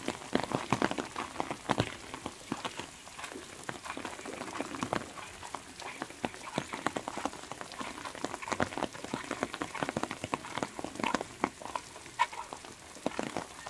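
Light rain falling, with single drops ticking irregularly, several a second.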